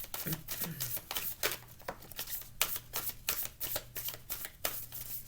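A deck of oracle cards being shuffled by hand, an irregular run of quick card snaps and rustles.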